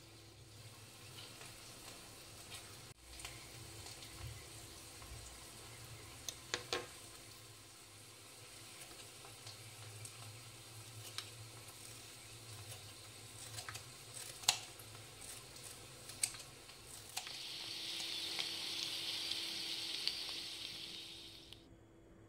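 Faint kitchen background with a few sharp clicks, then, from about three-quarters of the way in, a steady sizzle of oil frying in a pan that fades out just before the end.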